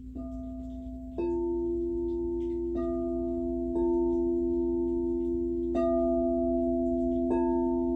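Singing bowls struck about six times at a slow, uneven pace, each strike adding a clear, steady ringing tone at its own pitch that sustains and overlaps the others over a low hum already sounding.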